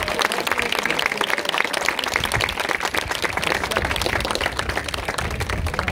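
A small group of people applauding, many hands clapping quickly and irregularly, at a steady level.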